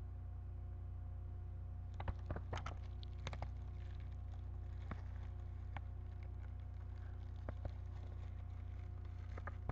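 Scattered light clicks and taps of computer parts and packaging being handled, a cluster about two seconds in and a few more later, over a steady electrical hum.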